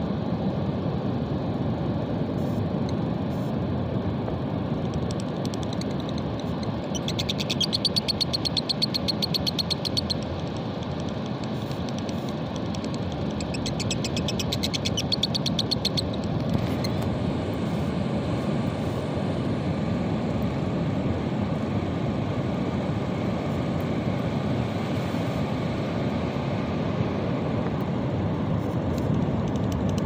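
Steady noise of breaking sea surf, with two spells of rapid high-pitched chattering from small caged parrots, each about three seconds long, the first about seven seconds in and the second about fourteen seconds in.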